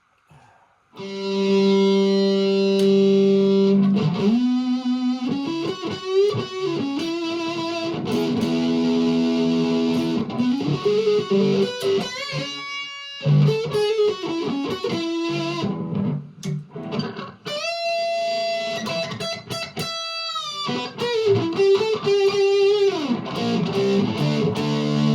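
Electric guitar played through a Behringer OD300 overdrive pedal into a Vox MV50AC amp: distorted, sustained chords and single notes with pitch bends and slides, starting about a second in.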